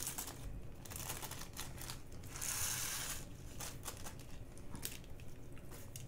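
Small plastic bags of diamond-painting drills crinkling and rustling as they are handled, with scattered small clicks and a longer, denser rustle about two and a half seconds in.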